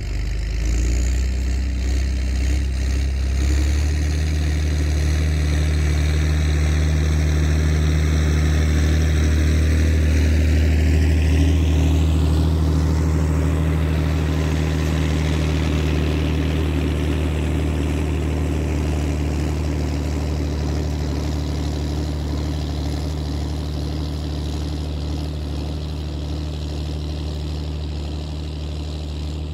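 Tractor engine running steadily while ploughing. It steps up in tone about four seconds in, grows louder toward the middle and then slowly fades.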